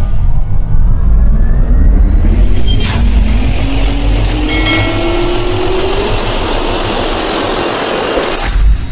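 Jet engine spooling up: a whine rising steadily in pitch over a heavy low rumble, with two sharp clicks about three and five seconds in.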